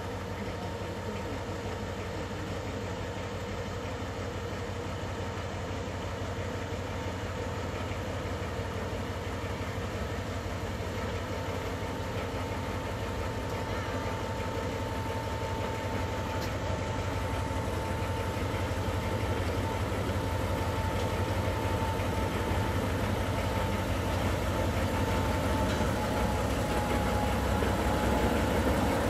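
Diesel shunting locomotive's engine running at low revs as it slowly hauls a rake of passenger coaches: a steady low rumble with a thin steady whine above it, growing gradually louder as the locomotive comes closer.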